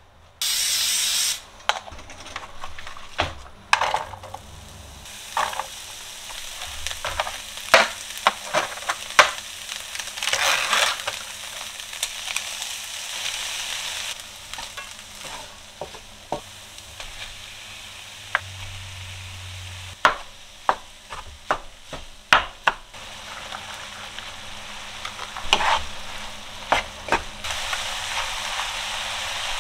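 Onions and ground meat sizzling in a frying pan, stirred and scraped with a spatula that knocks against the pan in repeated sharp clicks. A loud hiss lasts about a second near the start.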